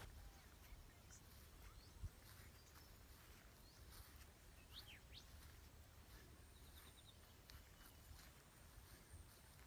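Near silence: outdoor ambience with a few faint bird chirps, the clearest about five seconds in, and a single soft thump about two seconds in.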